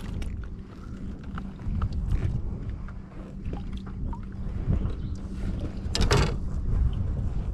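Wind buffeting the microphone as a steady low rumble, over small wet rustles and splashes as clumps of lake weed are pulled from a fishing net and lure and dropped over the side of a kayak. The loudest rustle comes about six seconds in.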